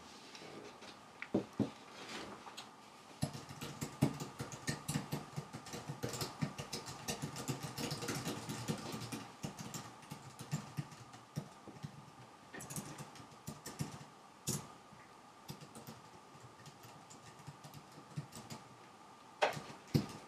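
Latex rubber trousers squeaking and rustling as hands rub over them and the wearer shifts on an office chair: a dense run of short squeaks and crackles, busiest in the first half, with a few sharper clicks later on.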